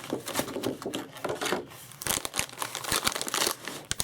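Plastic packaging crinkling and rustling as a graphics card is handled and lifted out, with many small crackles and clicks that grow denser about halfway through.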